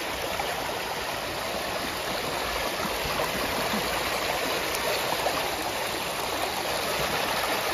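Shallow stream running fast over rocks, a steady rush of splashing water.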